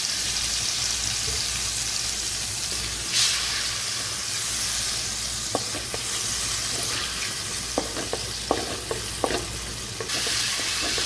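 Chilli-tomato masala sizzling in hot oil in a metal kadhai, a steady frying hiss, with vinegar poured in at the start and a louder flare of hiss about three seconds in. From about halfway, a spoon scrapes and knocks against the pan in a run of sharp clicks as the sauce is stirred.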